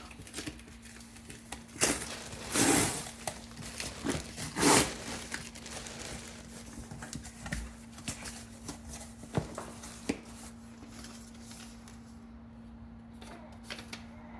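A package being opened by hand: paper or plastic tearing and crinkling, with small handling clicks. The loudest bursts of rustling come about two to three seconds in and again near five seconds, over a faint steady hum.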